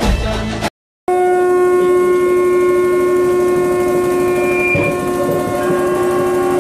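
Music cuts off, and after a brief gap a conch shell (shankh) is blown in one long, steady note held for several seconds.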